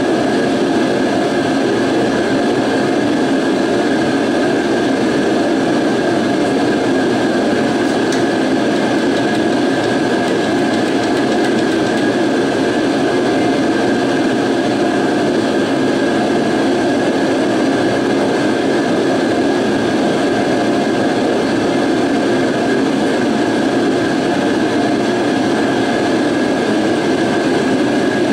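Workshop heater running: a steady, unbroken noise with a faint steady whine on top.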